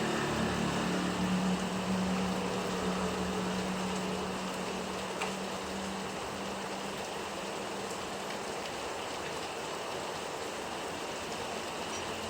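Steady rain falling and pattering on surfaces. A low engine hum, loudest at the start, fades away over the first seven seconds or so.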